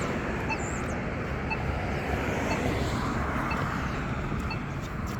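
Steady road traffic noise, with the locator tone of a Polara iDS2 accessible pedestrian pushbutton beeping faintly about once a second.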